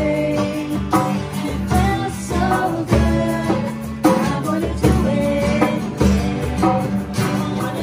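Two acoustic guitars strummed together with a hand drum keeping the beat, and women singing the melody along with them.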